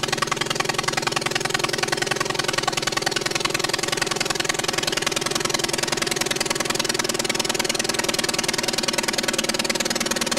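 An engine running steadily at an even speed, with no change in pitch.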